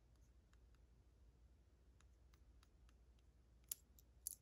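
Faint, scattered small clicks from handling the disassembled dimple lock and its pins, with two sharper clicks near the end.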